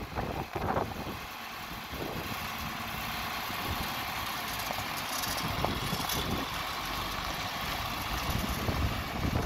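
John Deere 4020 tractor's six-cylinder engine running steadily at low speed as the tractor drives across gravel.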